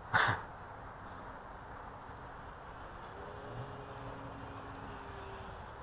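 Faint steady whine of a small RC airplane's brushless electric motor and propeller, coming in about three seconds in, its pitch sagging slightly, over a steady outdoor noise haze.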